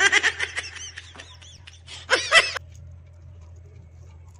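Chickens clucking: a fast run of short clucks at the start, then a second burst of calls about two seconds in.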